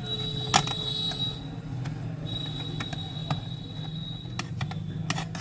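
Clicks and taps from Mac mini parts and tools being handled: a sharp click about half a second in and a few more near the end. Under them runs a steady high-pitched whine that drops out for about a second, and a low hum.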